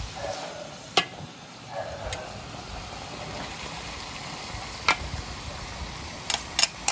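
Metal spatulas stirring chicken pieces in spice paste in a large aluminium wok, with sharp clinks of metal on the pan scattered through and three in quick succession near the end, over a steady hiss.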